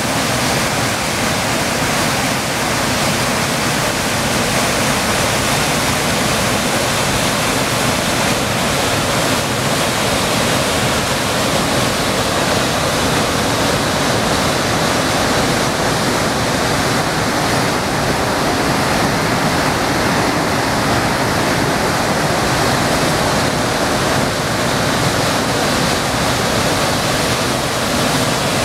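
Waterfall and whitewater cascade on a mountain river: a loud, steady rush of falling water that holds an even level throughout.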